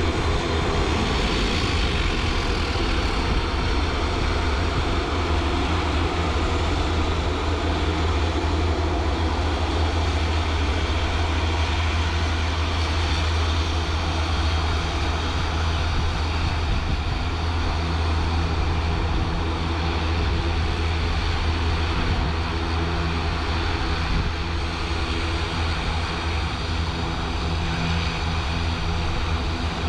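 Dornier 328's twin turboprop engines and propellers running steadily at taxi power, a low even drone with a hum underneath.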